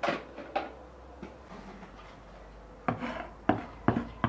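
Sharp clicks and knocks of kitchenware handled on a wooden table: a click at the start and another half a second later, then a quick run of four or five knocks about three seconds in.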